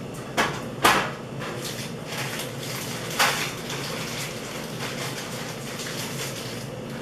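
Electric food steamer's bowls and lid knocking as they are stacked and set in place: three short knocks, the loudest about a second in, over a steady hiss.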